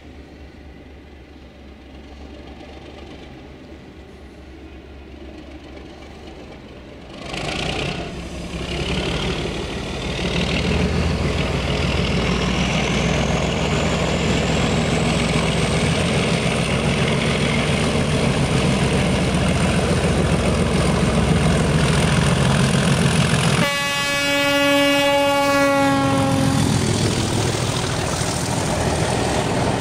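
Class 37 diesel locomotive's English Electric engine running under power as the train gets under way, getting much louder about seven seconds in, with a thin whistle rising in pitch over the following seconds. Near the end the locomotive's horn sounds one steady note for about three seconds, then the engine carries on as the coaches pass.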